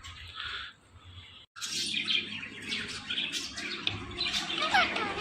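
Birds chirping and twittering in quick overlapping calls, starting after a brief cut in the sound about one and a half seconds in, with a few quick whistled glides near the end.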